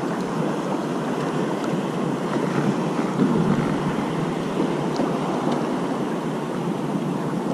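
Steady wind noise on the microphone mixed with the wash of choppy sea water around a kayak, an even rushing hiss with no distinct events.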